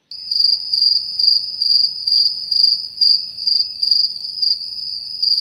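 Cricket chirping sound effect edited in over a pause: a steady high-pitched trill that swells about two to three times a second, starting abruptly out of dead silence.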